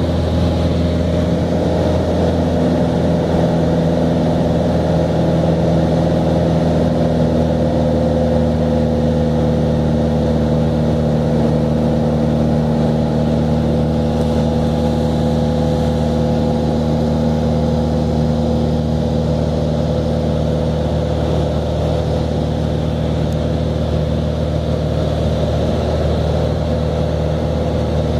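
Cessna 182's piston engine and propeller running steadily in flight, heard from inside the cabin as an even drone.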